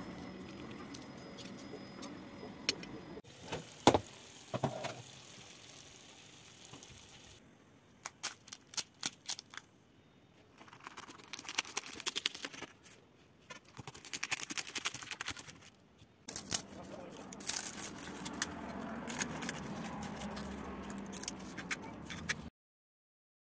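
Crisp, flaky filo layers of a baked cheese burek crackling and crunching as a knife and fork cut through them, with cutlery clicking and scraping on the plate and pan. The sound comes in several short stretches that change abruptly, and cuts off to silence near the end.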